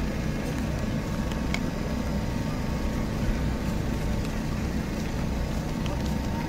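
A steady low rumble of outdoor background noise, with a few faint clicks.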